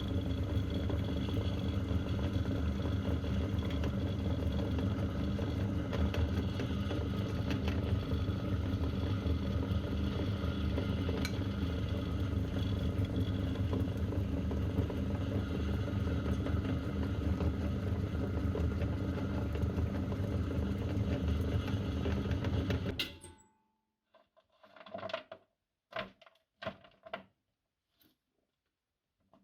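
Electric meat grinder's motor running steadily with an even hum as it grinds chocolate candies, then switched off and stopping abruptly near the end. A few short knocks and rubs follow.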